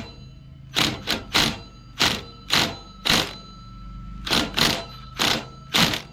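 Small impact wrench hammering on the reverse-threaded clutch of a Stihl MS 194T chainsaw to break it loose, in short separate rattling blows, about ten of them in pairs and singles, over a steady low hum.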